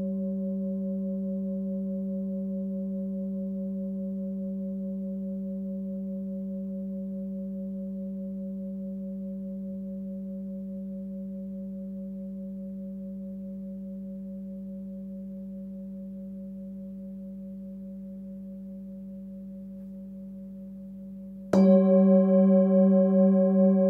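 Hand-forged Sun Moon singing bowl, 19.8 cm, ringing with its fundamental near 193 Hz (G) and higher overtones, slowly fading for about twenty seconds. Near the end it is struck again and rings out loud with a pulsing beat.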